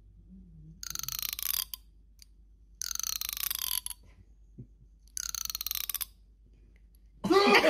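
A tabby cat gives three protesting cries as its head is patted. Each cry lasts about a second, falls in pitch and has a rattling edge.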